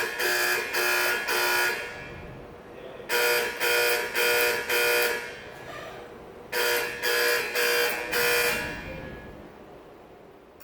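Vibratone fire alarm horns on an Autocall fire alarm system sounding the 4-4-4-4 Cadence Marching Code: three groups of four short blasts with a short pause between groups. After the third group the horns stop, and the sound dies away in a long echo.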